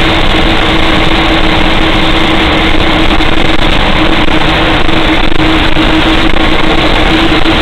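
Old truck's engine running steadily at cruising speed, heard loud from inside the cab, with a steady whine over the engine and road noise.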